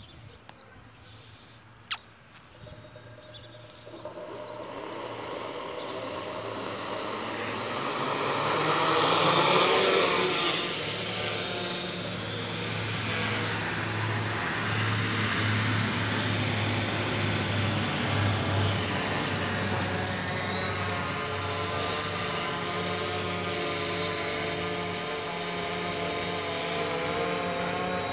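F450 quadcopter's brushless motors and propellers spinning up from quiet, growing louder for several seconds as it lifts off, then a steady buzzing hum as it hovers overhead. A single sharp click comes about two seconds in.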